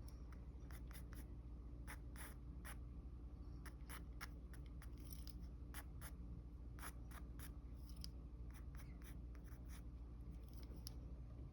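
Mechanical pencil sketching on paper: short, irregular scratching strokes over a steady low hum.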